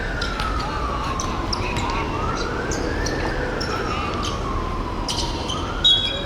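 A wailing siren gliding slowly up and down, one rise and fall about every three seconds. Short squeaks and knocks from play on the court sit on top, with a brief loud squeak near the end.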